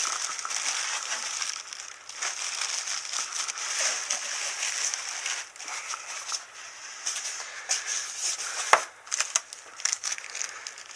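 Packaging being handled and pulled about: crinkling and rustling with scattered small clicks, and one sharper knock near the end.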